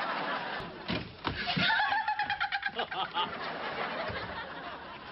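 Sitcom studio audience laughing, a dense wave of laughter that breaks into quicker, choppier laughs, with one long held vocal tone about two seconds in.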